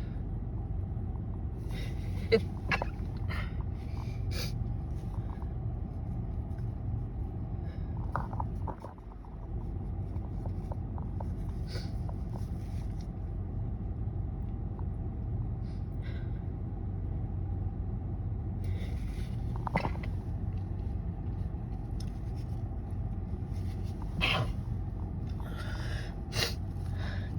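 A person with a stuffy head cold sniffing and catching their breath while working up to a sneeze, then letting out stifled sneezes near the end. A sharp click a couple of seconds in, and a steady low hum underneath.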